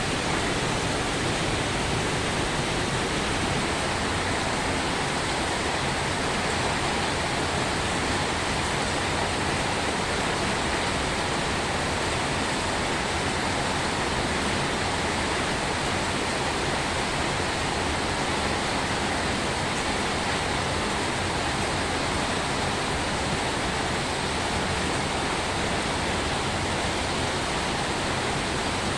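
Steady rain, an even unbroken hiss with no separate drops or pauses standing out.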